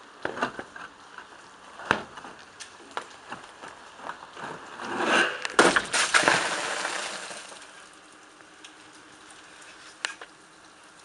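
Ice cracking and shattering: a few sharp cracks, then a few seconds of crackling, clinking clatter in the middle, and a couple more cracks near the end.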